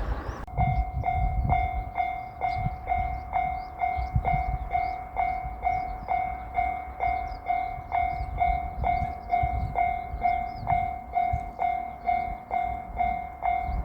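Japanese level-crossing electronic warning bell ringing in even, steady strokes, a little over two a second. The rush of a passing train stops about half a second in, and an uneven low rumble continues beneath the bell.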